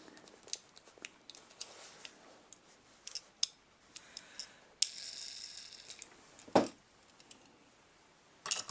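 Small clicks and taps of hands handling tiny model parts and tools on a workbench, with a short rustle about five seconds in and a sharper knock soon after.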